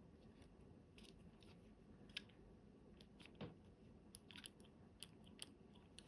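Near silence, with a few faint, scattered small clicks and ticks.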